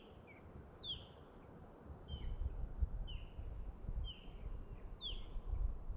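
A bird calling repeatedly, short falling chirps roughly once a second, over a low rumble that grows louder about two seconds in.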